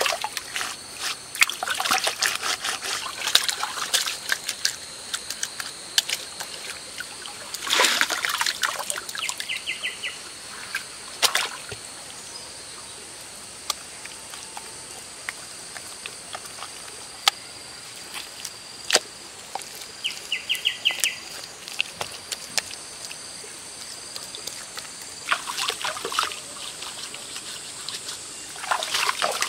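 Wet clay being squeezed and slapped by hand, a busy run of sticky squelches and splats over a trickling stream, thinning out after about twelve seconds. Near the end, hands scoop and splash stream water onto a stone.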